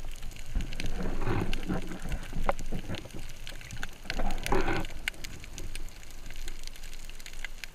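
Underwater sound picked up by the camera in shallow sea: a steady hiss with many scattered sharp clicks and crackles, and two louder watery swells about one and a half and four and a half seconds in.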